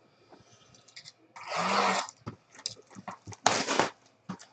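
A cardboard trading-card box being handled and opened by hand: scattered taps and scrapes, with a longer loud rasp about one and a half seconds in and another just past three and a half seconds.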